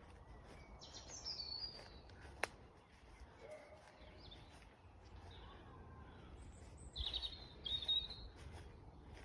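Birds chirping faintly, with two louder high chirping phrases about a second in and again near the end, and a single sharp click between them. A low rumble runs underneath.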